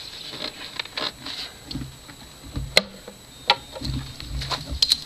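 Rubber air-intake hose being worked off a plastic air-intake box by hand: scattered light taps and rubbing, with a few sharp plastic clicks, the loudest about three seconds in and a pair near the end.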